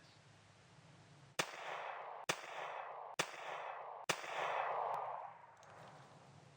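Hunting rifle shots: four sharp cracks about a second apart, each followed by a rushing hiss. The hiss after the last crack swells and then fades.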